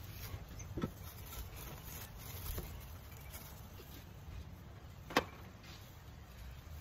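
Wind buffeting the microphone with a low rumble, and a few light clicks, the sharpest about five seconds in, from metal tongs working at a charcoal kettle grill.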